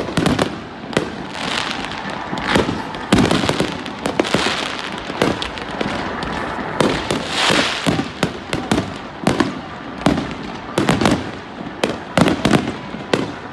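Fireworks going off: a dense, irregular string of sharp bangs, several a second, with crackling in between.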